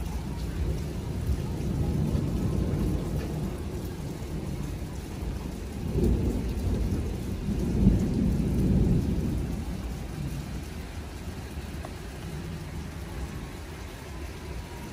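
Thunderstorm noise: steady rain with a low rumbling that swells twice midway.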